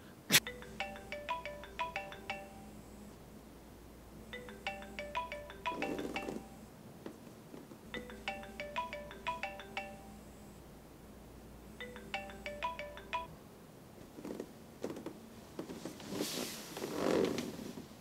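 A phone alarm ringtone playing a short marimba-like tune, repeated four times about every four seconds before it stops. Bedclothes rustle twice, and a sharp click about half a second in is the loudest sound.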